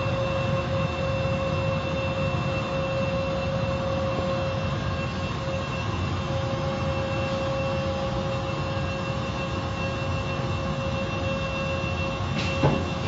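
Car wash machinery running: a steady mechanical noise with a low rumble and two constant whining tones. A brief knock near the end.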